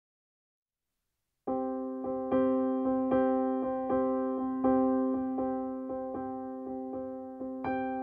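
Background piano music that begins about a second and a half in, with notes struck in a steady pattern, each ringing out and fading.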